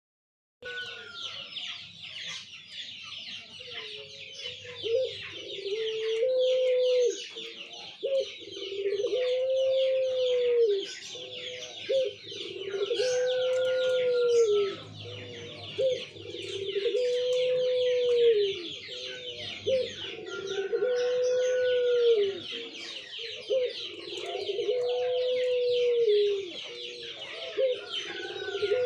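Puter pelung dove cooing: about seven long coos, each one drawn-out arched note that rises and falls, repeating roughly every four seconds.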